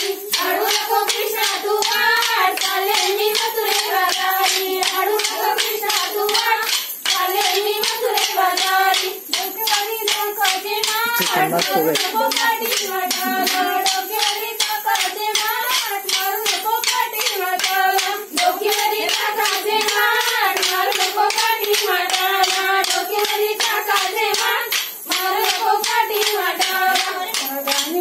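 Short wooden dance sticks clacking together in a fast, steady rhythm, with a group of women singing a folk song in unison over the clacks.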